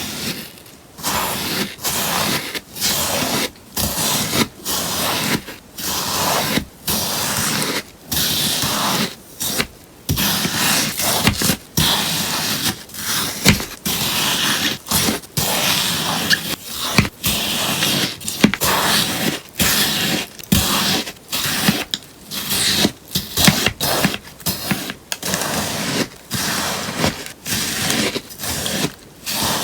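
A sponge being cut again and again, each cut a crisp, scraping snip, about one a second and a little quicker in the second half.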